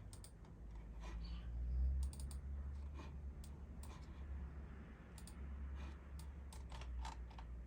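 Faint, irregular clicks of a computer mouse and keyboard, over a low steady hum.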